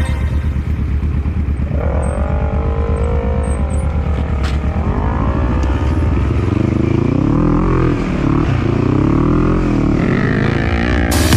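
ATV (quad bike) engine revving as it rides over sandy, hilly tracks, its pitch rising and falling repeatedly with the throttle.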